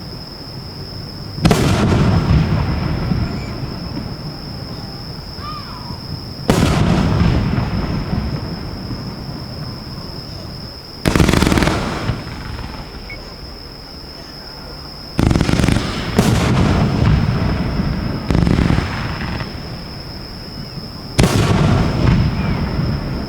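Aerial fireworks shells going off close by: about six sharp booms a few seconds apart, each trailing off in a long rumbling echo, two of them coming close together in the second half. A steady high-pitched tone runs underneath.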